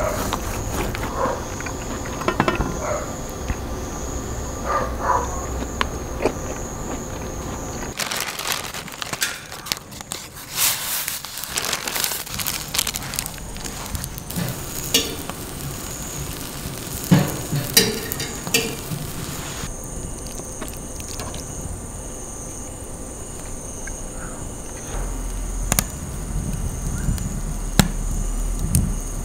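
A steady chirping of insects, with a knife tapping and scraping on a steel tray early on. Then a fire crackles and sizzles on the stove's grate in many sharp pops, settling back to the insect chirp near the end.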